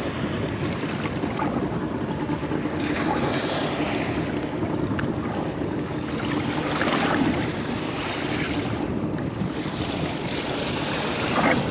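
Wind buffeting the microphone and sea water washing against the hull of a small RIB, swelling every few seconds.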